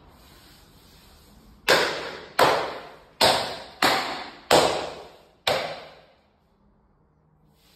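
Six sharp hand slaps on a thin marble-look wall panel, pressing it onto the column. The slaps come at uneven intervals and each rings briefly before fading.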